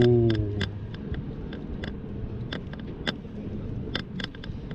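Riding noise from an electric scooter picked up by a chest-worn GoPro in wind-reduction mode: a steady low rumble of wind and road with scattered sharp clicks and knocks. A short low hum that falls slightly in pitch sounds at the very start and is the loudest thing.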